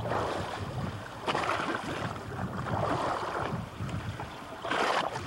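Water sloshing and splashing at the sea surface beside a boat, mixed with wind on the microphone. It is a steady rushing noise, with louder surges about a second in and near the end.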